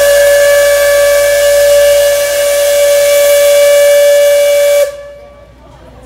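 Steam whistle of an Alishan Forest Railway steam locomotive sounding one long, steady, loud blast over a hiss of steam, cutting off sharply about five seconds in.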